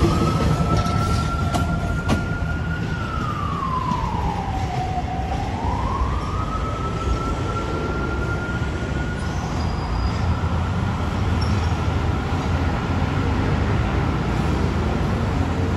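A siren wailing: a high tone that holds, sweeps down in pitch about three seconds in and climbs back up, then grows fainter, over the low rumble of a passing diesel passenger train and traffic.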